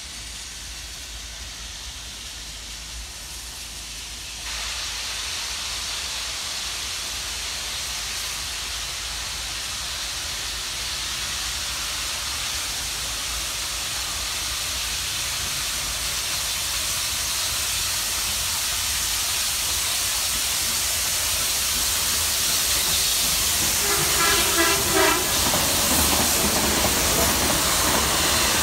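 NSW C38-class streamlined Pacific steam locomotive 3801 approaching and running past with its carriages, a steady rushing, hissing sound that grows louder as it nears. About 24 seconds in comes a brief pulsing tone.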